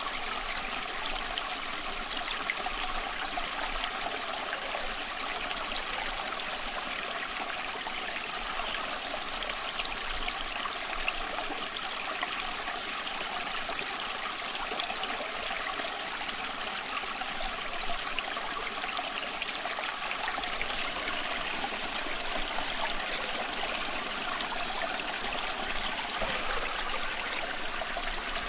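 A small stream of water running and trickling steadily over stones, with small splashes and gurgles.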